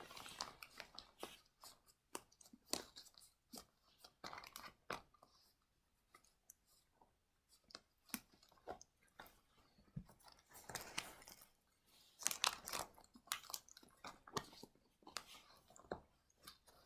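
Faint, irregular crunching of someone chewing a cookie close to the microphone.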